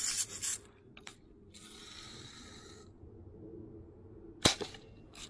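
Red Ryder lever-action BB gun being worked: clacks of the cocking lever at the start and a longer rasp from the mechanism, then one sharp shot about four and a half seconds in.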